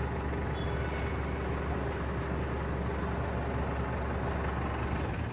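Truck engine idling steadily, a low rumble.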